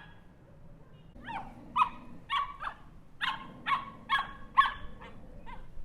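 Small dog barking: about ten short, high-pitched barks in quick succession, starting about a second in, roughly two a second.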